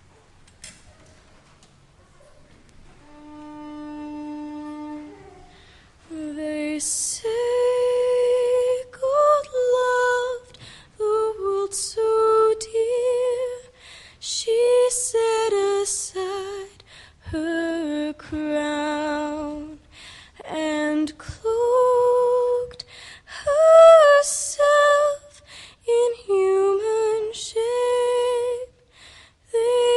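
One long held note about three seconds in, then female voices singing a slow melody without accompaniment, in long notes that rise and fall.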